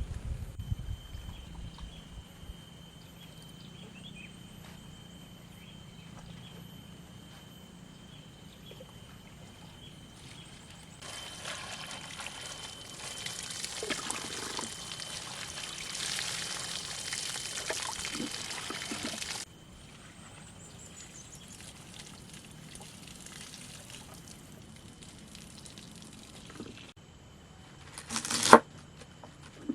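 Water pouring in a steady stream for about eight seconds midway, with a single loud knock or clatter near the end.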